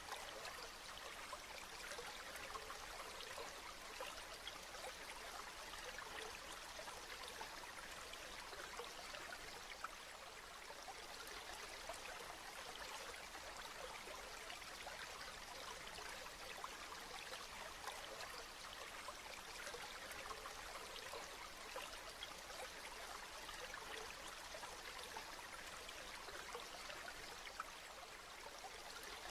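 Rain falling steadily: a dense, even patter of drops, with now and then a single louder drop.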